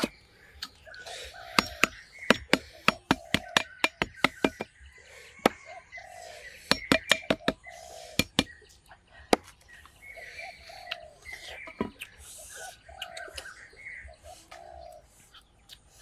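A run of sharp knocks, several a second at times, from about one and a half to nine and a half seconds in, over birds calling.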